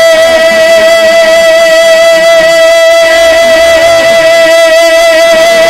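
Music built on one long note held at a steady pitch with a slight waver, loud and even.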